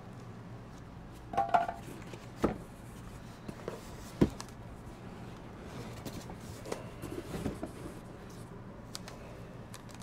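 Packaging being handled while a soundbar is unpacked: styrofoam end blocks and the foam-wrapped bar knocking and scraping against a cardboard box, with a few sharp knocks in the first half (the loudest about four seconds in) and softer rustling and rubbing later.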